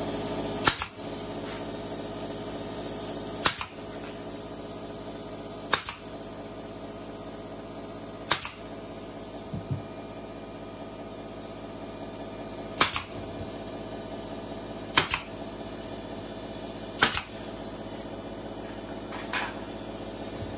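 Pneumatic brad nailer firing into thin plywood, eight sharp single shots every two to four seconds, the last one weaker, fastening a backing panel to a wooden cabinet. A steady hum runs underneath.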